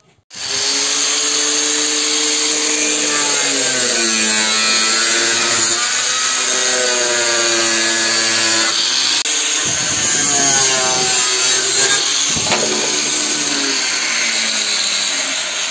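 Angle grinder with a cutting disc running and cutting into a plastic headlight housing to free the lens. It starts about a third of a second in and runs loudly throughout; its pitch sags and recovers as the disc bites.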